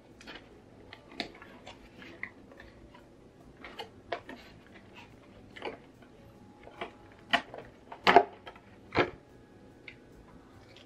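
Clear plastic clamshell packaging being handled and opened: scattered irregular clicks and taps, with the loudest clacks about eight and nine seconds in.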